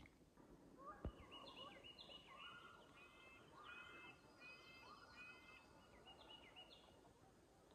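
Faint, distant calling of a flock of Canada geese: a string of short honks repeating over several seconds. One sharp click about a second in.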